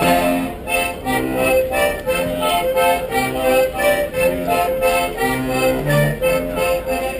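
Accordion playing lively folk dance music, with regular bass notes about twice a second under the melody.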